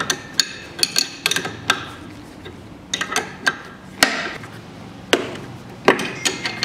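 Sharp metal clicks and knocks, irregularly spaced, from a wrench and ball-joint puller working the tie rod end off the steering knuckle. The loudest knock, about four seconds in, rings briefly.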